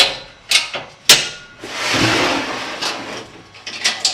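Handling noises at the keg forge: three sharp knocks, then a scraping slide lasting about a second and a half, then two more knocks near the end.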